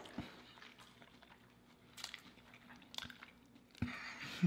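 Faint, close-miked chewing and mouth sounds of someone eating a fried bologna and bacon sandwich, with a few short sharp clicks and crunches about two, three and four seconds in.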